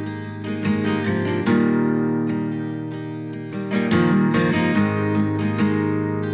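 Background music: acoustic guitar strumming and picking chords at a steady rhythm.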